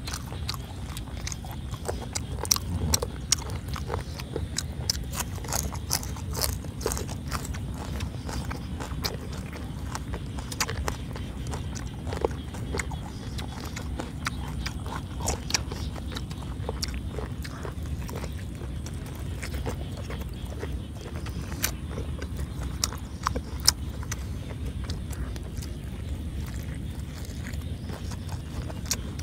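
Close-miked chewing and tearing of crunchy boiled pig's head meat, with many short crackles and clicks over a steady low rumble.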